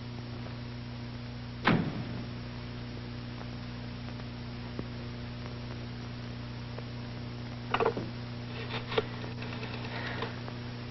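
Steady low hum and hiss of an old optical film soundtrack, with one sharp knock about two seconds in. Near the end come a few light clicks as a telephone receiver is picked up.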